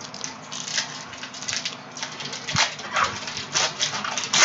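Foil wrapper of a trading-card pack crinkling and tearing as it is ripped open by hand: an irregular run of sharp crackles, the loudest near the end.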